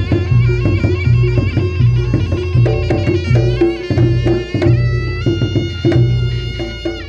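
Reog Ponorogo gamelan music: a shrill double-reed slompret (trumpet) plays a wavering melody, holding one long note in the second half, over a steady pattern of kendang drums and gongs.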